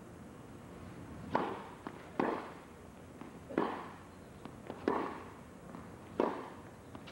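Tennis ball struck back and forth by racquets in a baseline rally after a second serve: five sharp hits, each about a second and a quarter after the last, each with a short echo from the indoor arena.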